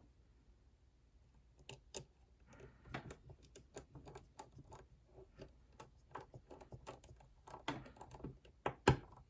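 Irregular small clicks and taps of a screwdriver and tiny parts on a work surface as small screws are put back into an iPhone. The clicks start about two seconds in and come several a second, with one louder knock near the end.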